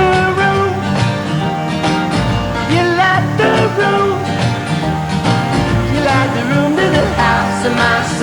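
Background music: a country-style song with guitar and a sliding melody line.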